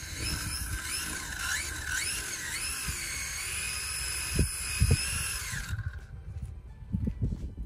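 Sensored brushless electric motor of an RC drag car whining as the throttle is blipped, rising in pitch several times. It then holds a steady high whine and cuts off about two-thirds of the way in. A few dull thumps follow near the end.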